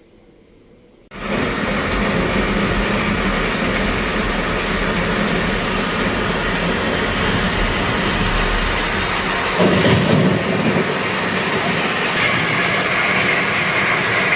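Thunder sound effect played loud over a cinema sound system: a sudden, heavy rumbling roar breaks in about a second in and holds, swelling again about ten seconds in.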